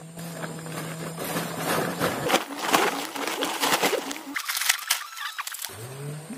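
Plastic sack and leafy green plant stalks rustling and crackling as they are handled and stuffed into the sack, with a low steady hum under the first couple of seconds.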